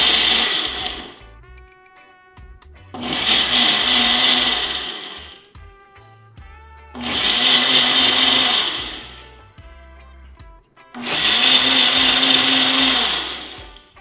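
Ninja countertop blender running in pulses on a countdown program, blending onions and scotch bonnet peppers in oil and water: four bursts of about two seconds each with short pauses between, the motor winding down at the end of each burst.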